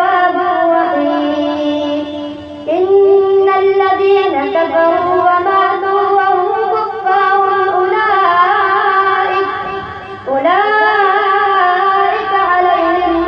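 A boy's voice chanting Quran recitation, long held melodic phrases with gliding pitch, broken by short breaths about two and a half and ten seconds in.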